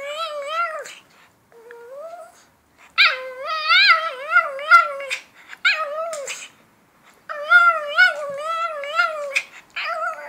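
A Shih Tzu 'talking': about six drawn-out, warbling whines and yowls that waver up and down in pitch, with short pauses between them.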